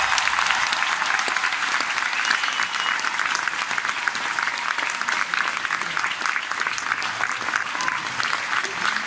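Large arena audience applauding, a dense steady clapping after an ice-skating number.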